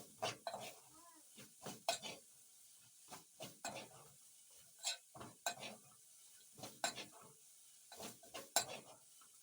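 A cooking spoon knocking and scraping against a pot in a run of irregular clatters while food is stirred.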